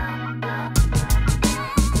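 Background music: steady instrumental notes, joined by a drum beat a little under a second in.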